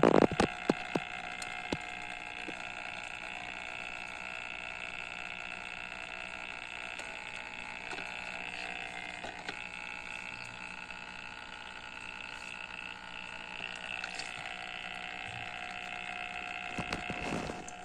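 Hang-on-back aquarium filter running with a steady whine made of several constant tones, over the trickle of water. A few sharp clicks in the first second. The uploader traces such a whine in a new filter to the impeller catching on unfinished plastic moulding burrs.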